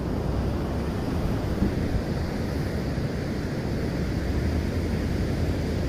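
Steady low rumble and hiss of wind on the microphone with ocean surf behind it, without breaks or sudden sounds.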